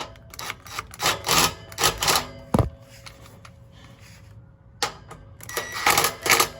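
Short bursts of rapid metallic clicking and clatter from tightening an exhaust pipe clamp with a wrench, with a sharp knock about two and a half seconds in.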